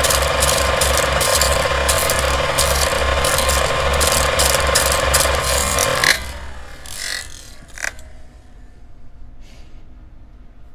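Old film projector sound effect: a rapid, even mechanical clatter over a steady hum. It cuts off about six seconds in, and is followed by a short whoosh and a single sharp click.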